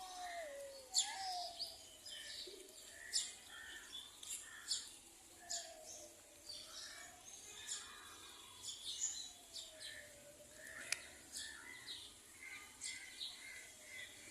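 Sparrows chirping: many short, sharp chirps coming irregularly throughout. Underneath, a faint steady tone slowly falls and rises again every three to four seconds.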